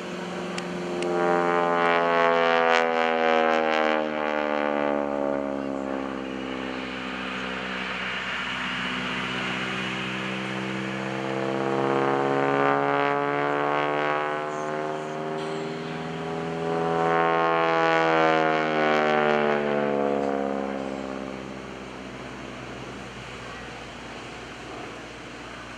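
Radial engine and propeller of an SNJ-5 Texan running at high power through aerobatic climbs and dives. The drone rises and falls in pitch and loudness, swelling three times as the aircraft passes through its manoeuvres.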